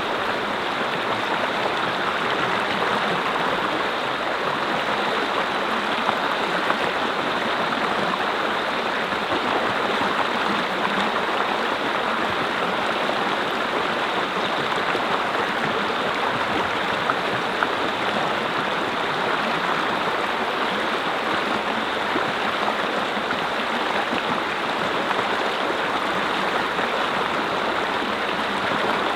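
Mountain stream (brook) flowing over rocks: a steady rushing and babbling of water that holds an even level throughout.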